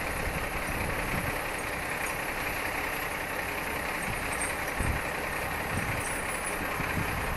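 Vehicle engine idling, heard from a distance as a steady low rumble with a hiss over it.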